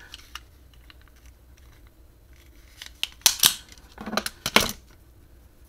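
Charger cable being cut and handled on a rubber bench mat: a few faint clicks, then several short, sharp snipping and scraping sounds in the second half.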